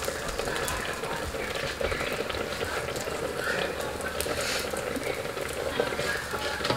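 Steady low sizzle and bubbling from naan dough cooking in a hot cast iron skillet and carrot halwa simmering in a saucepan beside it, with a wooden spoon stirring the pot near the end.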